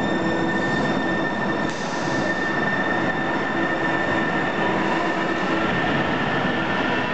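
Sound Transit Link light rail train running through an underground tunnel station, with a steady rumble and a steady high-pitched whine or squeal over it.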